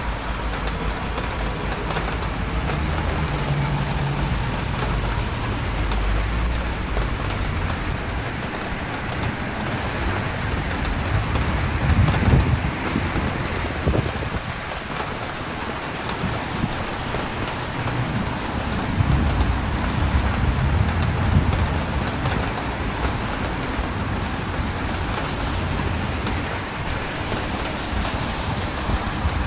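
Road traffic on a wet street in the rain: tyres hissing on the wet pavement and engines rumbling past, with two louder passes, one about twelve seconds in and another around twenty seconds in.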